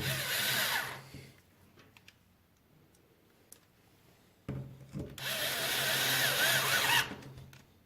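Cordless power screwdriver running in two bursts, a short one at the start and a longer one of about two and a half seconds halfway through, with a wavering motor whine. It is backing out the stock bumper's screws from an RC truck chassis.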